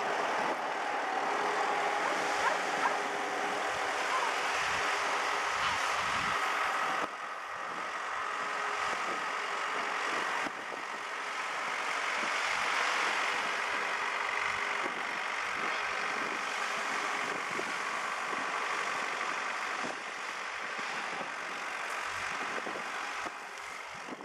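Tractor engine running at a distance as it tows a fishing boat on its trailer up a sand beach, with a faint steady whine and a constant hiss. Wind buffets the microphone with irregular low rumbles.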